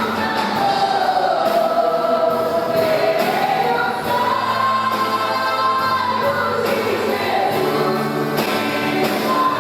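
Gospel choir singing a hymn with instrumental accompaniment: sustained, gliding vocal lines over a steady backing.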